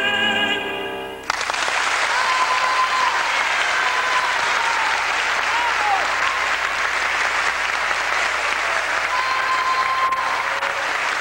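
A man's sung final note, with vibrato, fades out; about a second in, the audience breaks into loud applause that continues.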